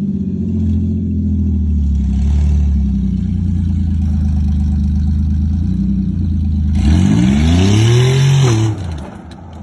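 Car engine running steadily, then revving hard with rising pitch for about two seconds near the end before dropping back. The vehicle is pulling to yank off a wheel held by a stud that is stripped and spinning in its hub.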